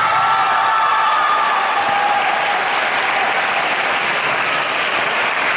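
Audience applauding steadily, with cheering voices dying away over the first couple of seconds.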